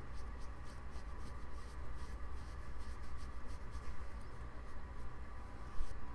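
A Real Techniques Expert Face Brush buffing foundation into the skin of the neck: repeated soft, quick scratchy brush strokes over a steady low hum.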